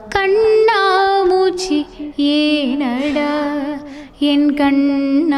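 Background music: a woman singing a Tamil song in Carnatic style, with long held notes that waver and slide between pitches and short breaks between phrases.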